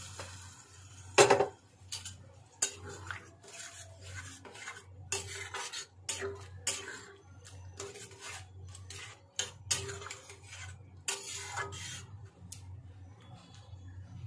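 Flat metal spatula scraping and clinking against a metal kadai while stirring boiled dried peas into a thick masala gravy. It comes in irregular strokes, with the loudest clang about a second in.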